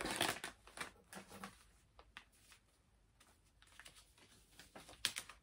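Foil and plastic snack packets being handled, crinkling and rustling. The crinkling is loudest right at the start and again shortly before the end, with scattered small taps and rustles in between.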